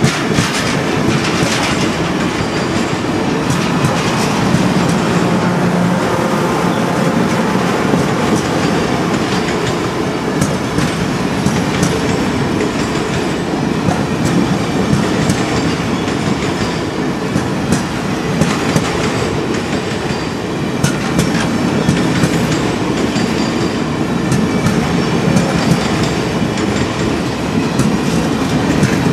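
Long train of passenger cars rolling steadily past at a street grade crossing, the wheels clicking irregularly over the rail joints.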